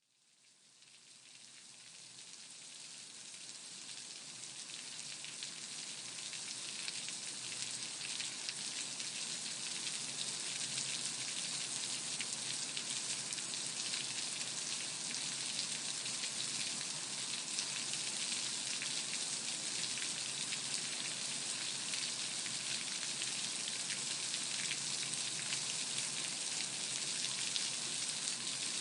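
Rain falling on a surface: a dense, even patter of many small drops. It swells up from silence over the first ten seconds or so, then holds steady as a heavy shower.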